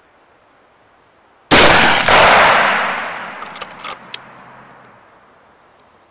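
A single shot from a scoped hunting rifle about a second and a half in: a sharp report that rolls away over a few seconds, with a few light clicks as it fades.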